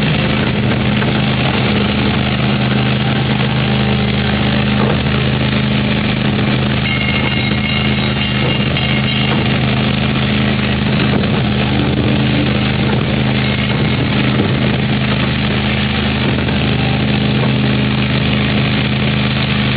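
Miniature ride-on train's engine running at a steady pace, heard from aboard as the train rolls along, with a constant low hum over rumbling noise.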